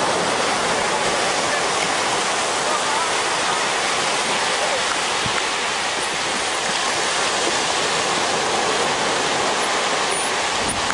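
Surf breaking on a sandy beach: a steady, even rush of waves in the shallows.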